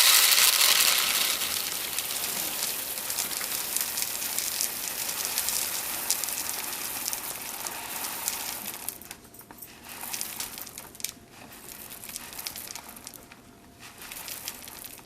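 English chocolate malt being poured out of a bag onto a scale: a dense, steady rush of falling kernels that tapers off about eight and a half seconds in, followed by scattered rustles of the bag and grain.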